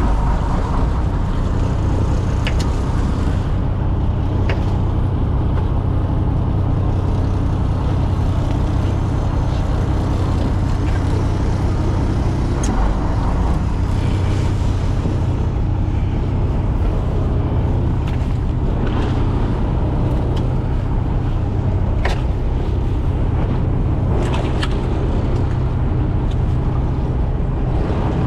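Fishing boat's engine running steadily with a low hum, with a few sharp clicks or knocks scattered through.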